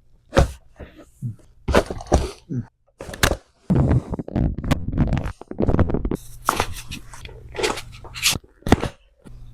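Spinal joints cracking during a chiropractic back adjustment: a run of sharp pops and cracks, several in quick succession, with a noisier stretch of movement sound between them.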